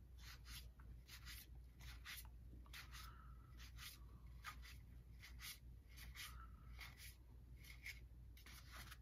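Faint, soft swishes of cardboard baseball cards sliding against one another as they are flipped through one at a time, a few strokes a second, over a low steady room hum.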